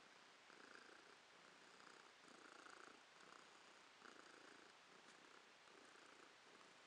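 Domestic tabby cat purring quietly and close up, the purr swelling and easing in a steady rhythm while it is stroked.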